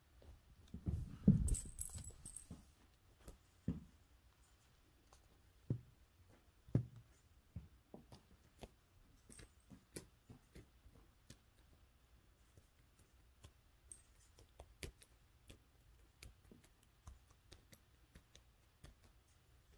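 A cat dashing across the floor, with a cluster of soft thumps about a second in, followed by scattered faint clicks and light taps.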